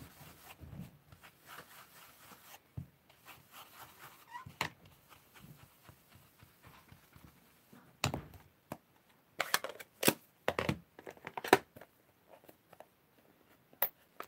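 Soft scratchy rubbing of a blending brush dabbed over cardstock, then from about eight seconds in a run of sharp plastic clicks and knocks as the brush is set down and a plastic ink pad case is picked up and handled.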